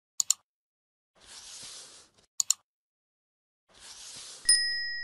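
On-screen like-and-subscribe animation sound effects: a quick double mouse click, a soft whoosh, a second double click and another whoosh. About four and a half seconds in comes a notification bell ding that rings on and slowly fades.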